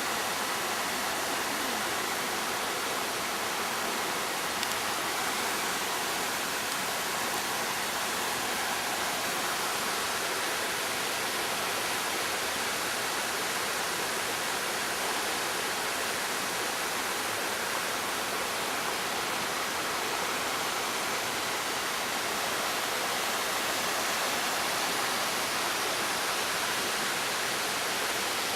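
Steady, even rush of water with no let-up or change.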